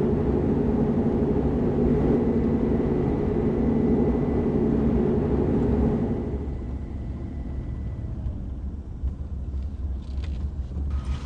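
Vehicle running on the road, with a steady engine and road rumble. The higher engine tone drops away about six seconds in, leaving a lower rumble, as if the vehicle eases off or slows.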